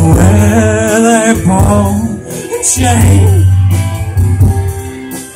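Live rock band playing through a PA: electric guitars, bass and drum kit with cymbal strokes, with a held, wavering note in the first second and a half.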